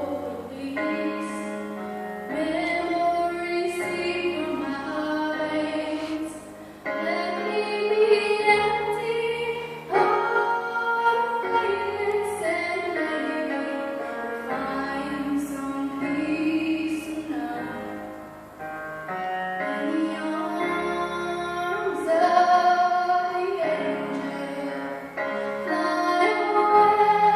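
A female singer singing a slow song, holding long notes, over an instrumental accompaniment with sustained low bass notes.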